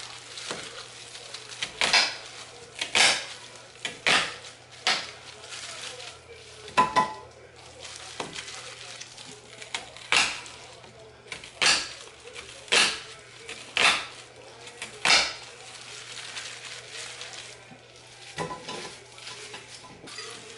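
Knife chopping onions, scallions and shallots on a cutting board: a rough chop of sharp knocks, about a second apart, that thin out to quieter handling after about fifteen seconds.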